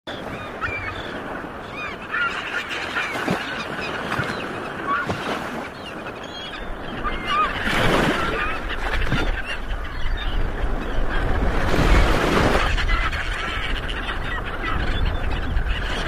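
Gulls calling, many short cries, thickest in the first half. A low rushing noise comes in after about six seconds and swells about 8 and 12 seconds in.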